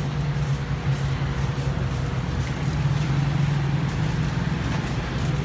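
A vehicle engine running steadily nearby: an even, low hum that holds unchanged.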